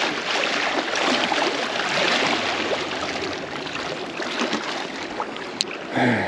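Shallow sea water washing and lapping over weed-covered rocks at the shore's edge, swelling and easing in waves, with a single sharp click about five and a half seconds in.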